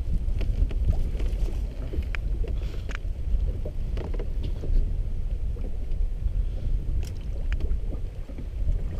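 Lake water splashing and lapping at the side of a small boat while a bull trout is held in the water and released, with scattered small knocks against the hull, over a steady low rumble.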